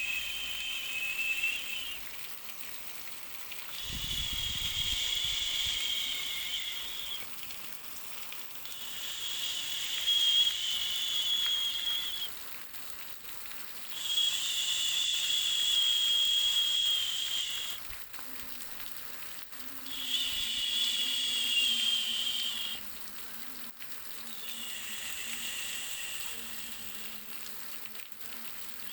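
A high-pitched hissing buzz that comes and goes in repeated spells of three to four seconds, six times, over a faint steady hiss, with a brief low thump about four seconds in.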